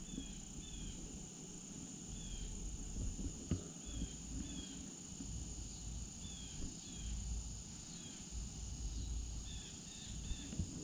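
Evening insect chorus at the water's edge: a steady high-pitched trill of crickets, with short falling chirps coming every second or so and a low rumble underneath.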